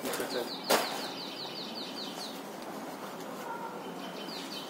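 A small bird calls in a quick run of short, high, falling notes, about six a second, for about two seconds, and starts again near the end. About a second in there is one sharp chop, a knife cutting through goat leg on a board.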